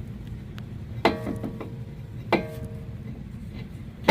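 Metal tools on a brake caliper clinking as a caliper piston compressor is turned with a wrench braced across the top: sharp clinks about every second and a quarter, each ringing briefly, over a low steady rumble.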